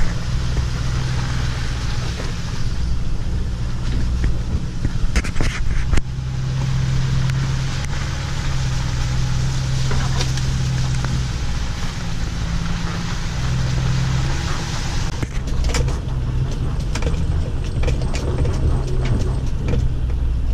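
Ford 6.4 Power Stroke V8 turbo-diesel running steadily at low trail speed, heard from inside the cab, with tyre and rolling noise over the muddy track. Scattered knocks come about five seconds in and again around fifteen seconds in.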